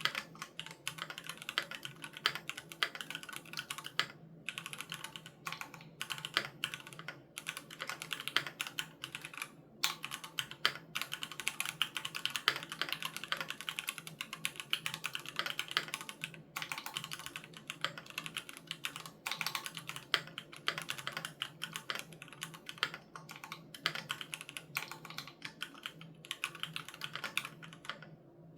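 Continuous typing on a Keychron Q3 Knob mechanical keyboard with Gateron G Pro Red linear switches: fast, dense key clicks broken by a few short pauses.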